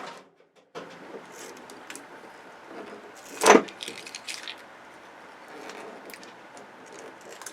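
Handling noise from a flat-screen TV panel being taken apart: rustling and small clinks of parts, with one loud sharp crack about three and a half seconds in.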